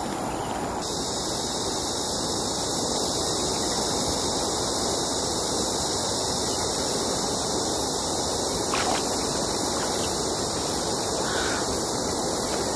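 Steady rushing of river water around a person wading in the shallows, with a couple of faint water sounds from hands groping on the riverbed about nine and eleven seconds in.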